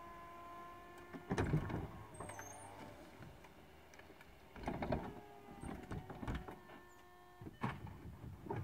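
VW Eos folding hardtop closing. The roof's electro-hydraulic pump whines steadily and fades after the first second. Clusters of clunks and knocks follow, about a second in, around five and six seconds, and near the end, as the roof panels and boot lid settle and latch.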